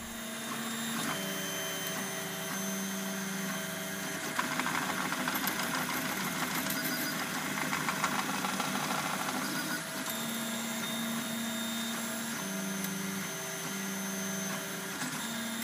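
MendelMax 3D printer running a print: its stepper motors whine at steady pitches that shift every second or two as the print head changes moves, over an even whirring haze. The sound turns busier and buzzier from about four to ten seconds in.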